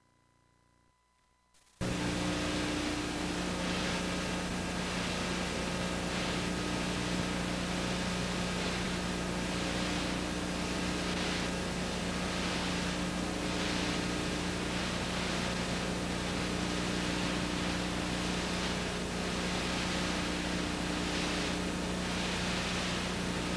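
Steady hiss with a low electrical hum from videotape playback of a film with no soundtrack. It starts suddenly about two seconds in, out of near silence, and then holds even.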